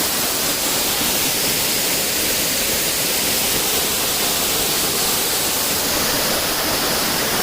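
Small waterfall's water pouring, a steady even rush with no change.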